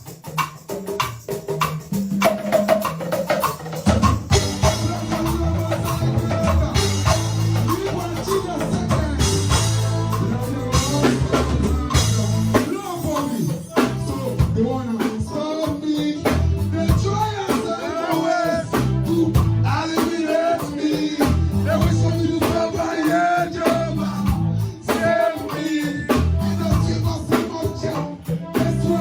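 Live band playing a dancehall riddim: drum kit and bass line, building to the full band about four seconds in.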